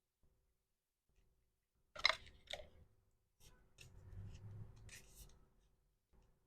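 Packing sounds: a sharp rustle of packaging about two seconds in, then a few light clicks and taps over soft rubbing as small resin accessories are handled.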